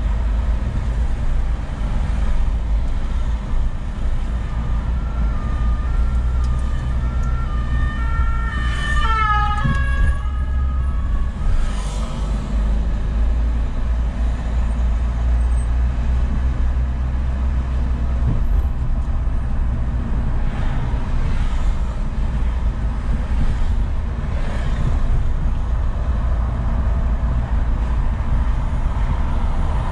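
Steady low rumble of a car driving slowly in city traffic. About five seconds in, an emergency vehicle's two-tone siren alternates between two pitches for a few seconds and fades out around ten seconds in.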